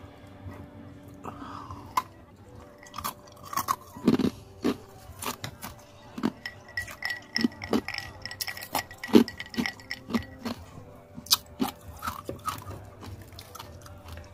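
Close-miked chewing and crunching of a person eating, with many short, irregular bites and mouth clicks. A faint restaurant background ambience runs underneath.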